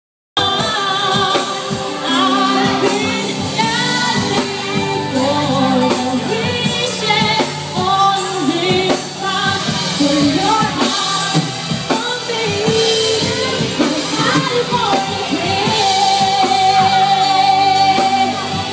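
Loud pop song with a singer over a steady drum beat; a long held sung note near the end.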